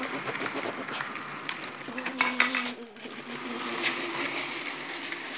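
Hornby model coal train's hopper wagons rolling along the track, their small metal wheels clicking and rattling on the rails over a steady hum.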